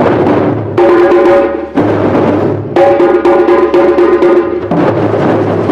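A crowd of hand drums beaten in fast, dense rhythms, in call-and-response phrases that switch about every second or two.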